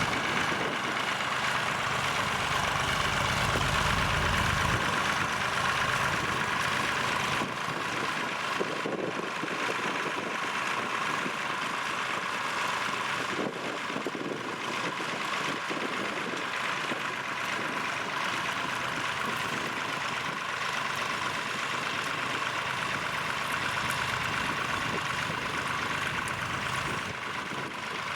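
Tractor engine running steadily, its low rumble dropping away about five seconds in.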